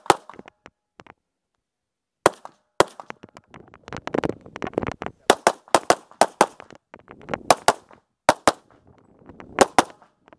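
Compensated open-class competition pistol firing fast, mostly in quick pairs a fraction of a second apart, with short pauses between pairs. A stretch of shuffling movement noise between shots around four to five seconds in.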